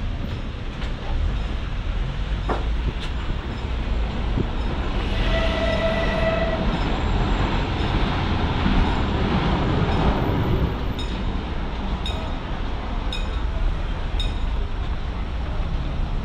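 Steady rumble of a passing vehicle, with a brief high squeal about five seconds in and light clicks about once a second later on.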